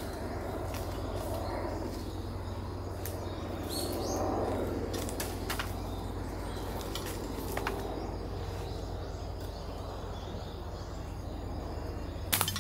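Outdoor ambience: a steady low hum with scattered light clicks, and a brief bird chirp about four seconds in.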